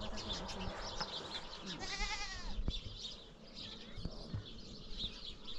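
Livestock bleating: one long, quavering bleat about two seconds in.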